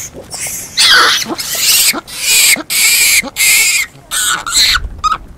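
Japanese macaques calling: a rapid string of loud, harsh, high-pitched screeches with short gaps between them, ending with a short stuttering call.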